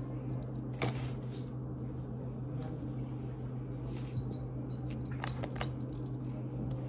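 Small repair tools from a kit being handled on a table: a few light clicks and taps, about one a second apart at first and then two close together, over a steady low hum.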